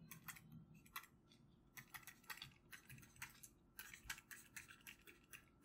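Faint, irregular taps and scratches of a stylus writing on a tablet screen.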